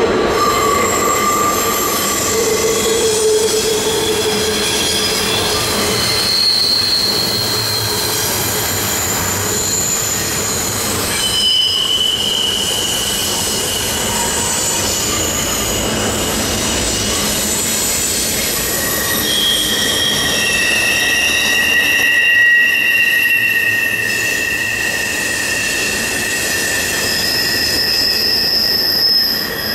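Steel wheels of a long freight train squealing against the rail as the cars round a curve. Several high, steady squeal tones come and go and overlap at different pitches, over the continuous rumble of the cars rolling by.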